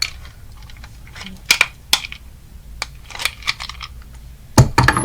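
Light irregular clicks and clacks of small hard plastic and metal pieces of a broken-apart alarm clock being handled and fitted together, with a cluster of louder knocks near the end.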